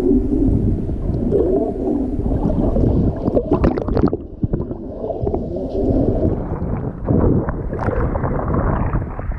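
Water churning and gurgling around a camera held underwater, a muffled, dull rumble, with a short burst of splashing about three and a half seconds in. Towards the end the sound turns brighter and hissier as shallow surf washes over the sand.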